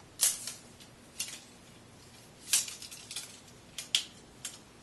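Light clicks and rustles from handling the parts and carry case of a Switchblade Grip flag kit: about six short, sharp sounds scattered over a few seconds.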